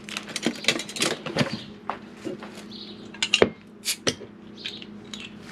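Kitchen clatter: dishes, utensils and containers knocked and set down in a quick irregular series of clinks and knocks, the loudest a little after three seconds and again about a second later, over a steady low hum.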